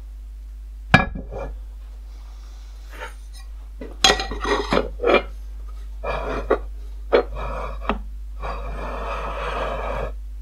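Steel marking-out tools and a stainless plate handled on a cast-iron surface plate: a sharp metal knock about a second in, a clatter of clinks and knocks around the middle, then about a second and a half of metal scraping near the end.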